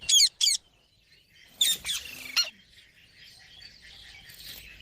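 Pet green parrot giving short, shrill calls: two quick ones at the start and a few more about two seconds in, then softer chirping.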